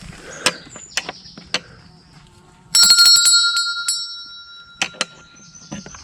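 A small metal bell struck once, about three seconds in, ringing in several clear high tones that fade away over about two seconds, with a few sharp clicks before and after.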